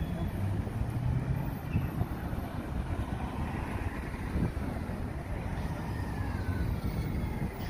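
Road traffic on a city street: a steady low rumble of car engines and tyres, swelling a little around the middle as a car passes.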